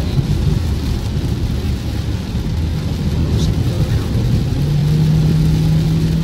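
Car driving on a flooded highway in heavy rain, heard from inside the cabin: steady low road and engine rumble with the hiss of tyres on the wet road. A steady low hum comes in about four and a half seconds in.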